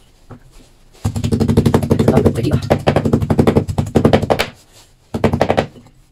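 Cleaver chopping fatty pork on a wooden cutting board: a fast run of sharp strokes starting about a second in and lasting some three seconds, then a short second burst near the end.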